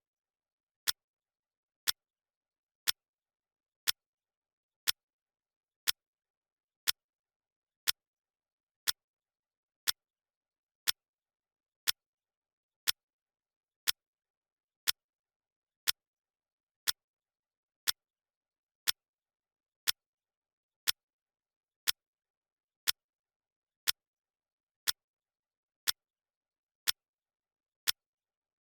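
Clock ticking sound effect: one sharp tick each second, with silence in between.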